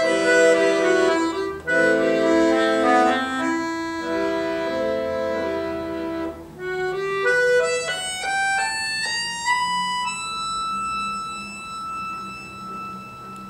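Button accordion (bayan) playing full chords, then a rising run of single notes about halfway through, ending the piece on one long high held note that slowly fades.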